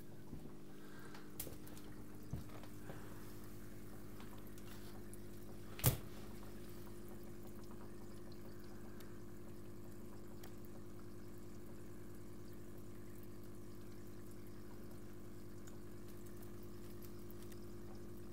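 Aquarium filter or pump running: a steady low hum with faint trickling water. There is one sharp click about six seconds in, and two softer ones before it.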